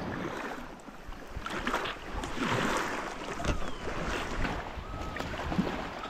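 Water sloshing and splashing around a kayak in uneven surges, with wind on the microphone.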